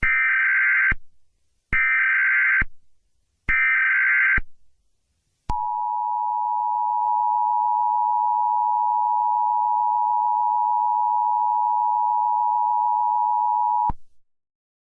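Emergency Alert System tones: three short bursts of SAME digital header data, each just under a second, then the EAS two-tone attention signal, a steady dual tone held for about eight seconds before cutting off. Together they announce an emergency alert, here an Emergency Action Notification.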